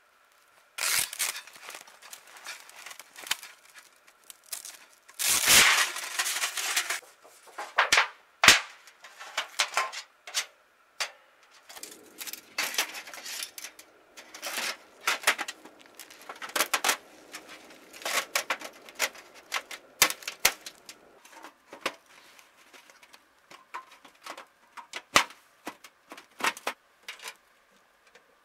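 Sheet-metal tent stove and its stovepipe being handled and unpacked from a bag: irregular metallic clinks, knocks and rattles with rustling, the longest and loudest stretch of rustling and scraping about five to seven seconds in.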